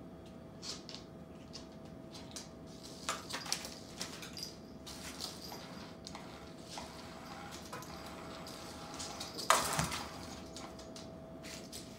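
Scattered light clicks and taps of pet claws and paws on a hardwood floor, with a louder pounce and rustle about nine and a half seconds in as a cat jumps on a cloth-covered cat toy. A faint steady hum runs underneath.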